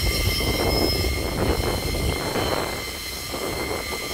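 Loaded gypsum hopper wagons rolling past, a low rumble of wheels on the rails that eases slightly after about three seconds.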